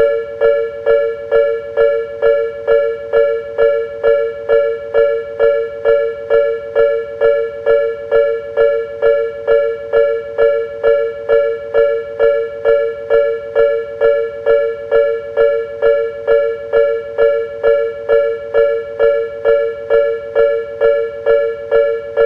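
Japanese level-crossing warning bell ringing its 'kan-kan' alarm about twice a second, each strike a two-note electronic bell tone. It is the signal that a train is approaching and the crossing is closed.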